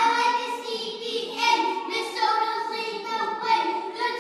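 A group of young children singing and rapping together in unison.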